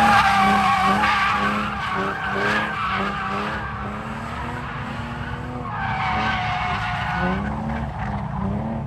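Car drifting: the engine revs up and down while the tires squeal, loudest at the start and fading over the first couple of seconds, then squealing again about six seconds in.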